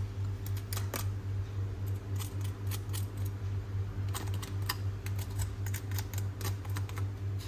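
Knife blade cutting into crisp deep-fried battered fritters, the crust cracking in scattered sharp crackles over a steady low hum. The crackle comes from a crunchy, crisp batter coating.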